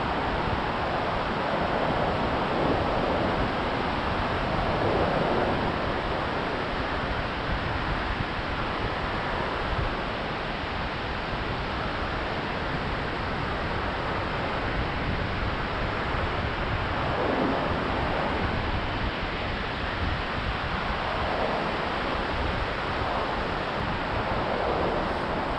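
Pacific Ocean surf breaking and washing up a flat sandy beach, a steady rush that swells up a few times, with wind rumbling on the microphone.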